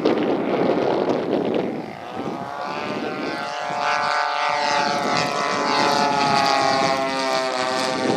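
Wind buffeting the microphone, then, about two and a half seconds in, the propeller engines of a radio-controlled model Douglas C-47 Dakota come in as a steady droning tone. The drone grows louder and dips slightly in pitch as the model flies past.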